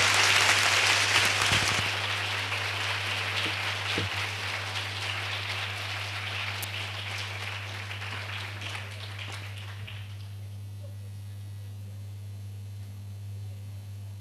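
Audience applauding, loudest at first and dying away over about ten seconds, leaving only a steady low electrical hum.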